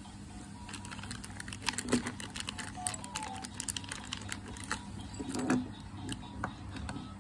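Small plastic building bricks clicking and rattling as they are handled and pulled apart on a tabletop, with a couple of light knocks about two seconds in and again near the middle.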